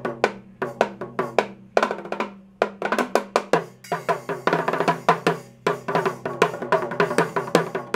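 Drum solo on a mini drum kit: quick stick strokes on the small toms and snare, the strokes coming faster and denser from about halfway through.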